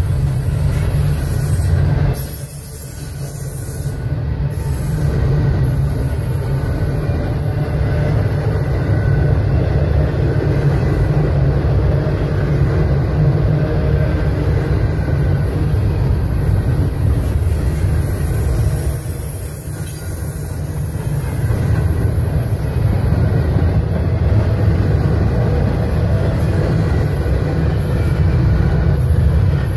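Double-stack intermodal freight train rolling past close by: a steady rumble of steel wheels on rail from the passing well cars, dipping briefly twice.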